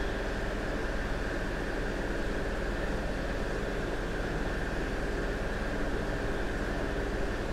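Steady background hum and hiss with no events in it, unchanging throughout.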